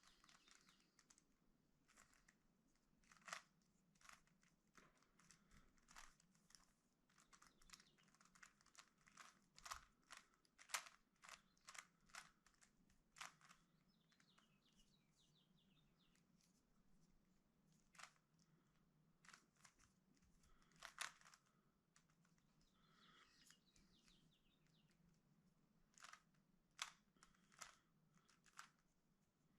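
Plastic Rubik's Cube layers being turned by hand: a run of short, irregular clicks and clacks, some in quick clusters.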